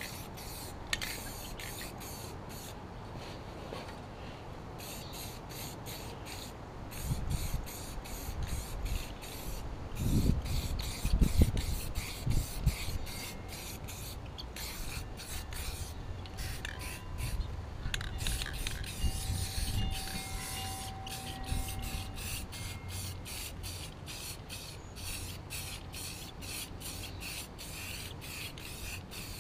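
An aerosol spray-paint can hissing in repeated bursts, stopping and starting, as paint is sprayed onto a mower deck. A few low thuds come about ten to twelve seconds in.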